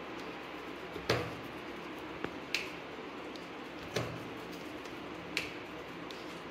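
Knife tapping against the tray while cutting set lauki barfi into pieces: about five sharp clicks at uneven intervals, over a faint steady hum.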